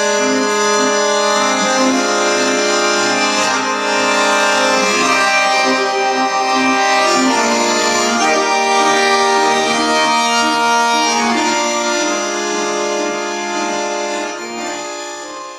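Accordion playing held chords and a slow melody, fading out near the end.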